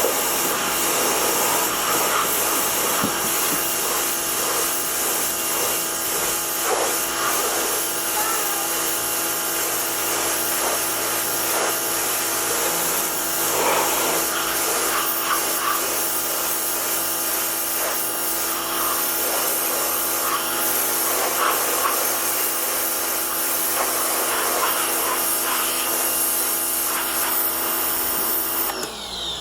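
Harbor Freight Portland electric pressure washer running, its motor and pump whining steadily under the hiss of a jet of plain water spraying onto a car's trunk. It stops shortly before the end.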